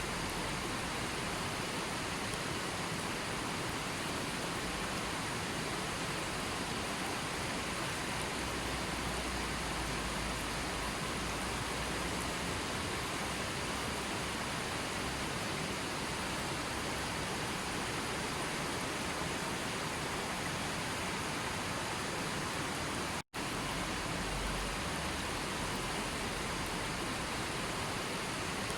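Steady rushing water, an even full-range hiss with no changes, cutting out for an instant about two-thirds of the way through.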